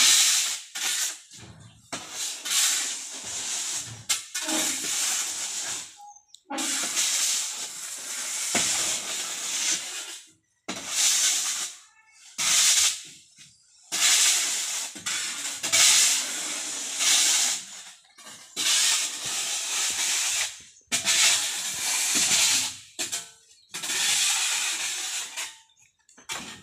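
River sand hissing as it is scraped with a shovel and hoe down the tipped steel bed of a tractor trailer and pours off onto the pile, in repeated pushes of a second or two with short gaps between.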